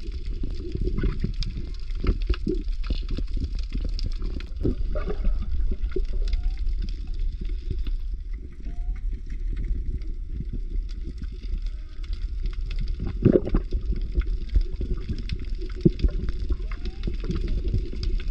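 Underwater ambience: a steady low rumble under a dense crackle of small clicks and bubbling, with short rising chirps every few seconds and a louder burst of clicks about two-thirds of the way through.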